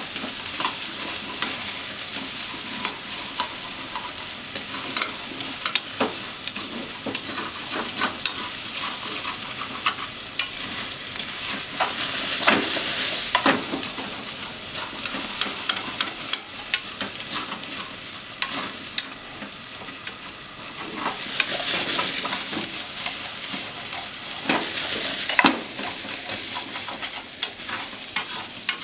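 Potato chunks and sliced onions sizzling in a frying pan, stirred with a wooden spatula. A steady sizzle runs throughout, with frequent clicks and scrapes of the spatula against the pan.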